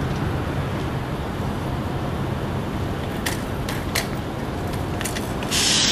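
Steady low rumble of vehicle engines and traffic. A few sharp clicks come in over the last few seconds, and near the end a brief, louder hissing rush as a bicycle passes close by.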